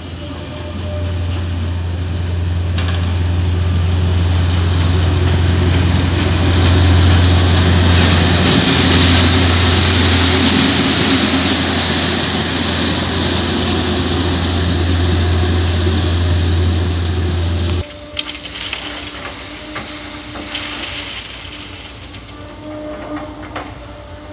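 Diesel engine of an SRT heavy track-maintenance vehicle running as it hauls a string of ballast hopper wagons past at close range, building to its loudest about nine seconds in. About eighteen seconds in the sound cuts off abruptly to a quieter, more distant running of the same vehicle.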